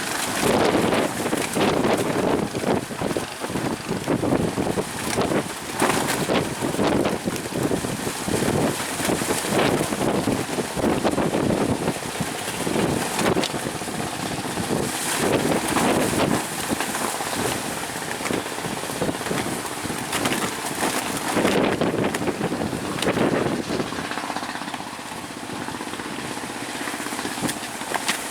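Strong wind gusting across the microphone over the noise of a rough, high-wave sea, rising and falling in surges. It eases off a few seconds before the end.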